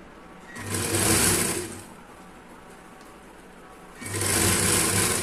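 Industrial sewing machine running in two short bursts of stitching, each about a second and a half long, as a half-inch seam is sewn along the fabric.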